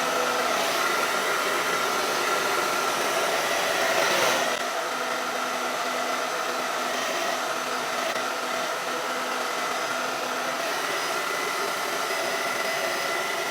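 Hair dryer blowing steadily, a rush of air with a faint whine in it, dropping a little in level about four and a half seconds in.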